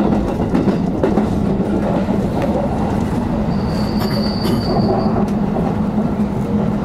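JR electric train pulling into a station, heard from inside the front car: a steady rumble of wheels on the rails, with a high squeal for about a second and a half around the middle.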